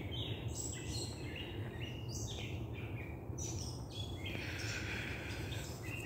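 Several birds calling back and forth in the trees, a busy overlapping mix of short chirps and whistled notes, with one longer harsh, rasping call about four seconds in. A low steady rumble runs underneath.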